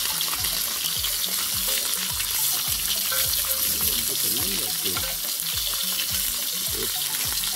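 Wild boar tomahawk steaks sizzling as they are laid into hot sunflower oil in a ridged grill pan, searing with a steady crackling hiss.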